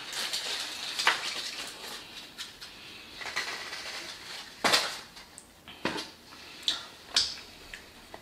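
Food wrapper rustling and crinkling as it is unwrapped by hand, with a handful of sharp clicks and knocks from handling containers on the table; the loudest knock comes a little past halfway.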